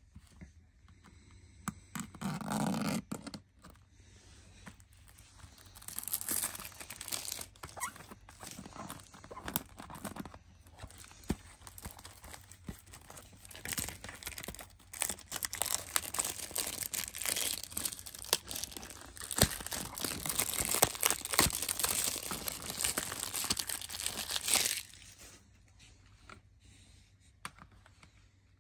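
Plastic shrink-wrap being torn and peeled off a CD jewel case: a continuous crinkling with many sharp crackles that stops abruptly near the end. A brief muffled sound comes about two seconds in.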